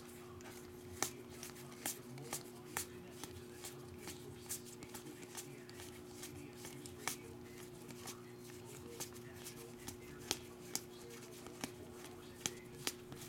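Trading cards (2019 Topps NXT wrestling cards) being flipped through one at a time in the hands. Each card gives a sharp little tick as it is pulled off the stack, at irregular intervals, over a steady low hum.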